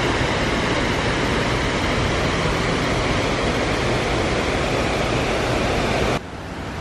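Water cascading down the walls of a 9/11 Memorial reflecting pool: a steady, even rush of falling water that drops away suddenly near the end.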